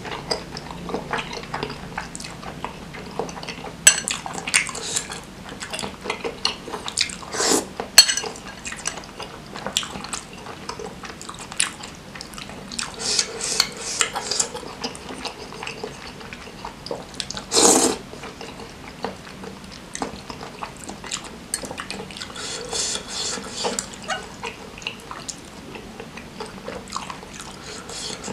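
Close-up eating sounds: a metal fork clinking and scraping against a glass bowl while noodles are lifted from a wet, spicy broth, with slurping and chewing in between. A few sharp clinks stand out about 4 and 8 seconds in, and a louder short noise comes near 18 seconds.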